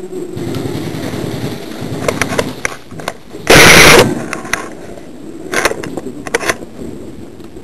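Airsoft guns firing scattered single shots, heard as sharp clicks and snaps. About three and a half seconds in there is one very loud burst of noise lasting about half a second.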